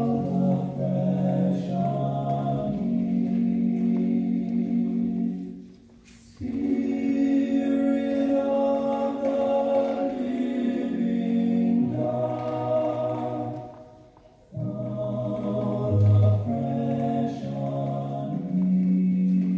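A vocal group singing slowly in harmony, holding long sustained chords, in three phrases with short breaks about six and fourteen seconds in.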